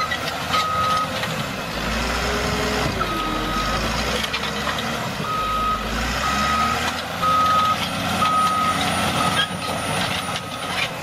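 Heavy vehicle's reversing alarm beeping in half-second pulses about once a second, dropping out for a few seconds near the start, over a steady background of machine noise.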